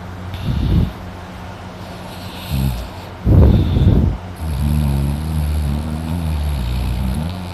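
A man snoring loudly in his sleep. There are a few short snores, the loudest a little over three seconds in, then one long wavering snore of about three seconds.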